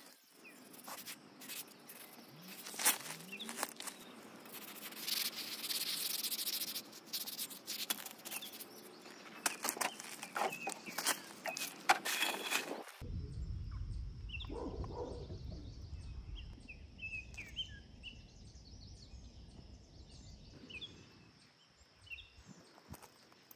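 Gravel crunching and clattering under an old ceramic sink as it is handled and set down on the stones, with many small knocks. After a cut about halfway, wind rumbles on the microphone while small birds chirp.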